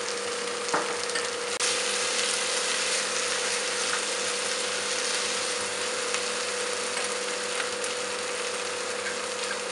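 Mutton frying in oil with spices and ground poppy seed and peanut paste, sizzling steadily, with a steady low hum underneath. There is a light knock about a second in, and the sizzle gets a little louder soon after.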